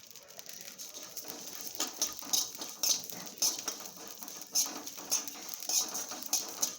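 Carom seeds (ajwain) being stirred as they dry-roast in a pan, a spatula scraping and rattling the seeds in short strokes roughly twice a second.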